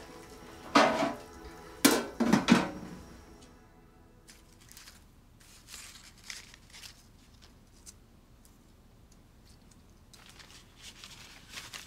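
Two or three loud ringing clinks within the first three seconds, then faint rustling and clicking as a small paper packet is opened and handled.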